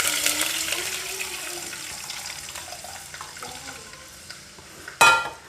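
Masala mixed in water poured into hot oil with fried shallots in a pan, hissing loudly at first and fading to a soft sizzle over several seconds. A short, loud ringing knock near the end.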